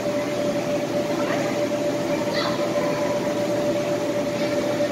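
Steady whooshing drone with a constant hum from the electric air blowers that keep the inflatable slides and bounce houses inflated. A few faint children's calls come through it, about a second and two and a half seconds in.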